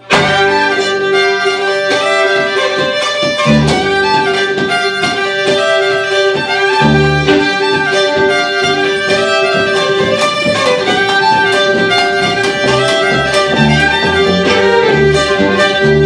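Two fiddles and an upright double bass playing a folk fiddle tune, with a steady held note running under the melody and the bass marking low notes beneath.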